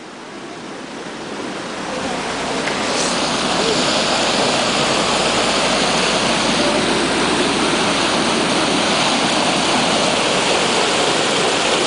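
Muddy floodwater rushing and churning through a channel under a rail fence, a steady noisy rush of water that swells over the first few seconds and then holds loud and even.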